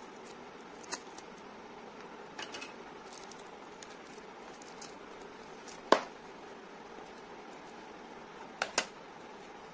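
A small cardboard product box handled by hand on a wooden table: a few sharp taps and clicks over a steady low hiss. The loudest click comes about six seconds in, and a quick pair of clicks comes near the end.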